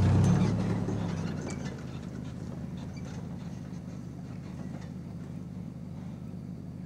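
Vehicle engine idling steadily, a low hum.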